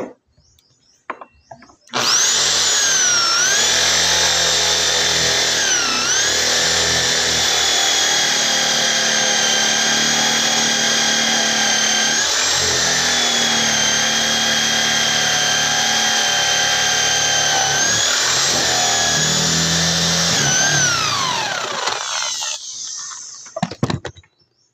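Electric drill with a 22 mm spade bit boring a hole through wood. The motor whines up about two seconds in, runs steadily with its pitch dipping briefly a few times as the bit bites, and winds down near the end.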